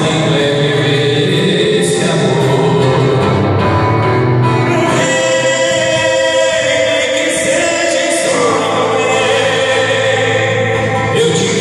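Sertanejo duo singing live together, two men's voices over a strummed acoustic guitar, with long held notes.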